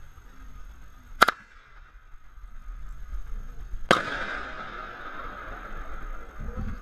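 A sharp crack, then about two and a half seconds later a loud impact with a hissing spray that fades over a few seconds: a cliff jumper hitting the river after a 20 m drop. A faint steady rush of river water runs underneath.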